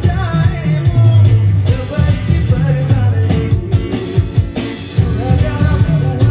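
A man singing into a microphone, accompanied by an electronic hand-percussion pad tapped with the fingers, giving a heavy, bass-laden drum beat.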